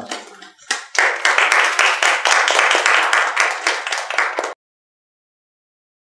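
A small group of people clapping their hands in applause. It starts about a second in and cuts off suddenly.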